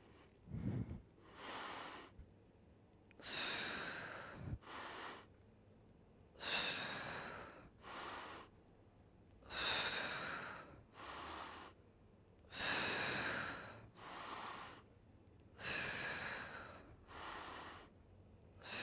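A person breathing hard and rhythmically with exertion: a longer breath followed by a shorter one, repeating about every three seconds, six times over.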